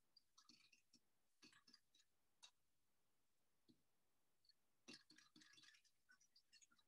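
Near silence with faint scattered clicks of a metal spoon against a glass bowl as a sauce is stirred, with a short cluster of clicks about five seconds in.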